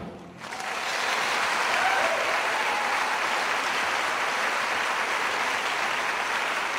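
Theatre audience applauding, swelling in about half a second after the music cuts off, then holding steady.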